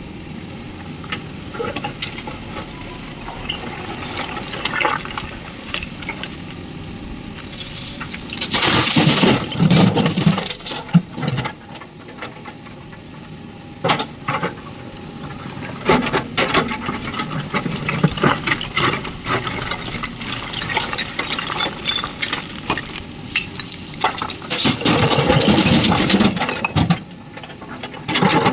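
Mahindra backhoe loader's diesel engine running steadily while loads of soil pour and clatter into a tractor trolley, in two long rushing spells about a third of the way in and again near the end, with sharp knocks of stones and metal in between.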